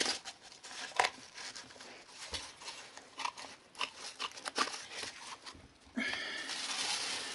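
Scattered light taps, clicks and rustles as a cardboard-cored roll and hand tools are handled on a carpet and pad. About six seconds in, an even, steady hiss-like rustle starts.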